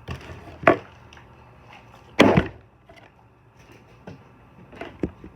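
A plastic water bottle landing and falling over on a hard, wooden-sounding surface, tossed again and again. There are several separate knocks, and the loudest is a quick double hit a little after two seconds in.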